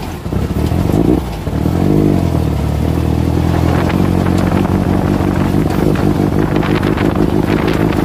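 Air-cooled VW Beetle flat-four engine of a Class 11 Baja Bug, heard from inside the car while driving. The revs bend up and down about two seconds in, then the engine holds a steady pace.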